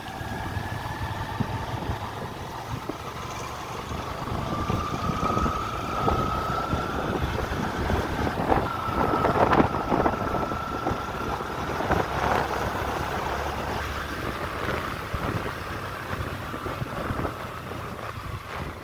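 Yamaha FZ V2 motorcycle's single-cylinder engine running at riding speed, heard over wind buffeting the microphone, with a thin whine that rises gently in pitch over the first half.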